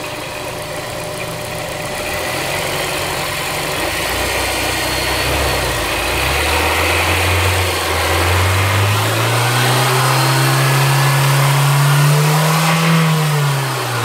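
Honda S2000's four-cylinder engine revved by hand at the throttle. It idles at first, then climbs steadily from about six seconds in, holds a high, steady speed, and drops back toward idle near the end.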